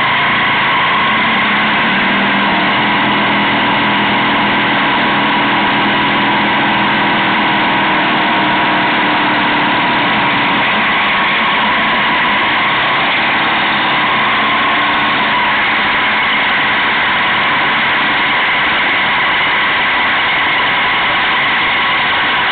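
Motorcycle engine running at low speed over a steady rushing noise, heard from a camera on the bike. A lower engine hum is strongest for the first several seconds, then fades back into the steady mix.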